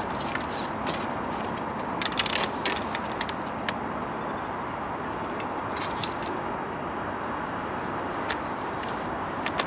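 Steady outdoor background noise with scattered sharp clicks and crackles, a cluster of them about two to four seconds in and single ones later.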